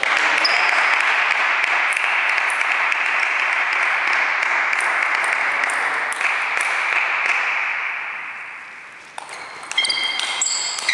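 Applause from the hall after a point, fading out over several seconds. About nine seconds in, a celluloid table tennis ball starts clicking, with short ringing pings as it is bounced and struck with paddles on the table at the start of the next rally.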